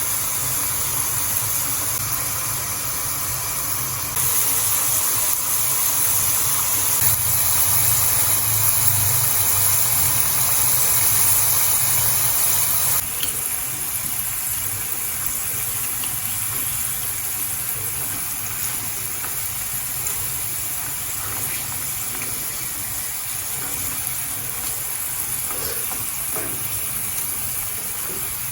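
Potatoes sizzling in hot oil, a steady hiss that gets louder about four seconds in and drops back about thirteen seconds in, with a few faint crackles later.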